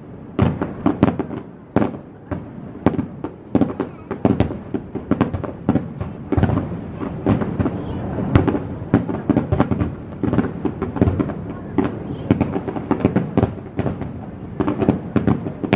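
Aerial fireworks bursting in rapid succession: several sharp bangs a second, overlapping one another, thickest in the middle of the stretch.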